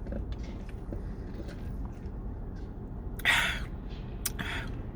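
Steady low rumble inside a car's cabin, with a short hissing noise about three seconds in and a fainter one near the end.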